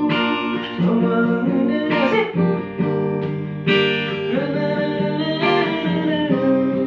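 Acoustic guitar strumming slow chords, about every second and a half, with a singing voice holding long notes between the sung lines.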